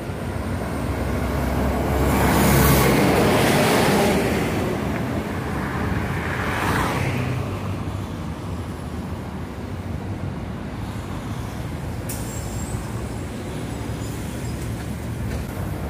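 Biarticulated BRT buses and road traffic passing along a busway. One loud pass swells about two to four seconds in, a shorter one comes about six to seven seconds in, then steady traffic noise.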